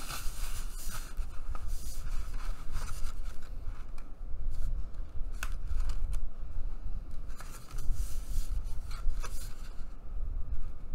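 Hands folding a sheet of heavy 114 lb mixed-media paper and rubbing along the fold to burnish the crease: paper sliding and rustling under the palms, with a few sharper crackles of the stiff paper.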